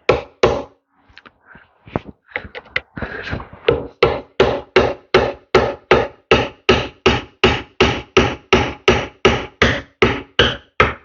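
Hand hammer blows driving out a roll pin on a tractor. A few scattered strikes come first, then a steady run of about three blows a second from about three seconds in.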